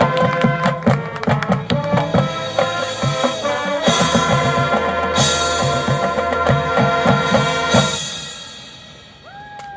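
High school marching band playing full ensemble: sustained brass and wind chords over drumline hits. The music stops about eight seconds in and rings away, and a few whistles rise and fall near the end.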